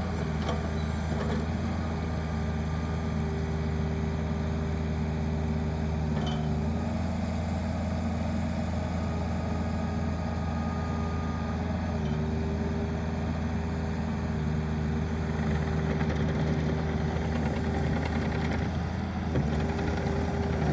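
IHI 40JX mini excavator's diesel engine running steadily, with a higher whine from the hydraulics that stops and starts again a few times as the arm is worked. It gets a little louder in the last few seconds.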